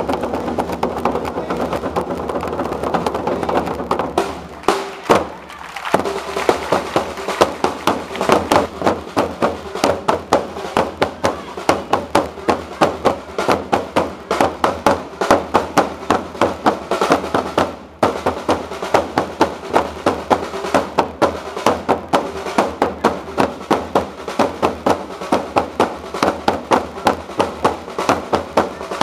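Drums beating a steady march rhythm for a flag-waving display, sharp strokes about two to three a second. The beat drops out briefly about five seconds in.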